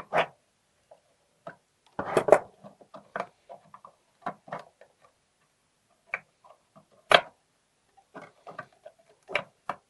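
Irregular metallic clicks and taps of pliers and the steel parts of a century-old front-door lock as its bolt and lever spring are worked back into place, with sharper clacks about two seconds in and about seven seconds in.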